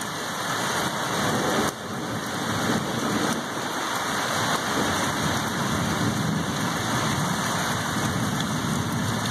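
Heavy thunderstorm rain falling steadily, a continuous hiss of downpour, dipping briefly in level just under two seconds in.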